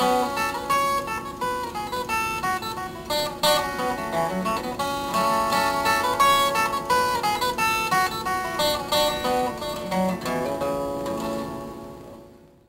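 Acoustic guitar music, a run of plucked notes with some strumming, fading out near the end.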